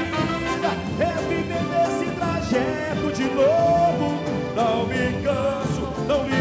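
Live band playing a boi-bumbá toada: a gliding melody line over a steady beat.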